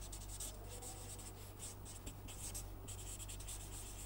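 Permanent marker writing on paper: a run of short, irregular scratchy pen strokes as letters are formed, over a steady low hum.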